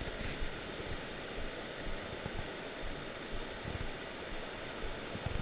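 Mountain stream rushing and cascading over rocks: a steady, even rush of water, with a few low bumps in the second half.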